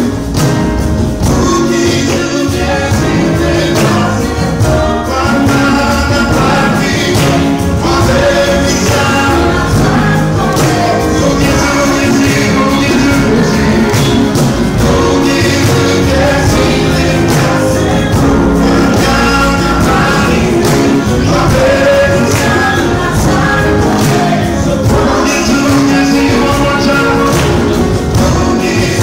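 Live gospel worship band: a male lead singer with a female backing singer, over grand piano, electric guitar and a steady percussion beat.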